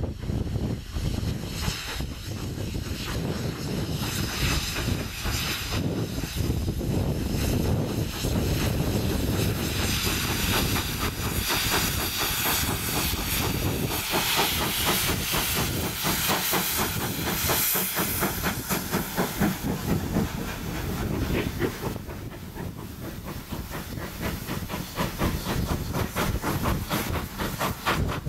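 GWR Collett 0-6-0 steam locomotive No. 3205 passing with a train of coaches, its exhaust beating rapidly over a steady hiss of steam. Near the end the coaches roll past on the rails.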